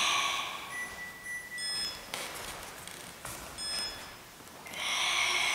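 Long forced, hissing exhalations of Sanchin kata breathing: one dies away about a second in, and another begins near the end, with a few faint short high squeaks in between.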